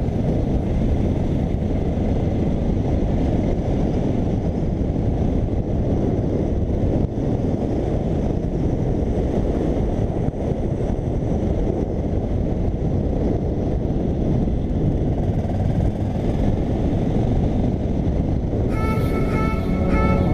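Steady wind rush on a helmet-mounted camera while riding, over the running single-cylinder engine of a Honda Dominator 650 motorcycle. Music with plucked notes comes in near the end.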